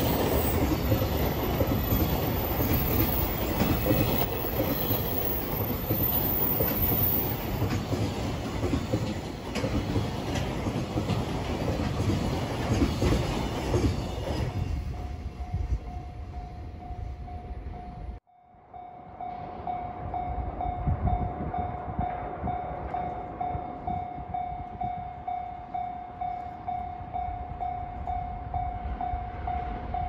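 JR Freight container wagons rolling past, wheels clattering over the rail joints, for about the first half. Once the train has cleared, a Japanese level-crossing alarm rings steadily, an electronic clang repeating about twice a second, and keeps going after a brief break in the sound near the middle.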